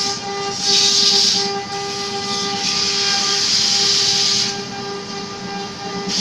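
Wood lathe running with a steady motor hum while sandpaper pressed against the spinning wooden column hisses. The hiss comes in surges, loudest about a second in and again from about three to four and a half seconds, easing near the end.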